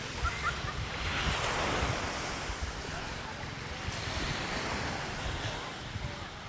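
Small waves washing onto a sandy beach, the rush of surf rising and falling twice, with wind buffeting the microphone.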